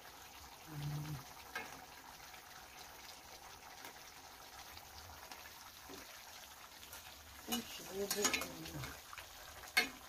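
Tomato and red-wine sauce simmering quietly in an enamelled cast-iron braiser with beef shanks, as a spoon scoops it up and pours it back over the meat. A sharp clink of the spoon against the pan comes near the end.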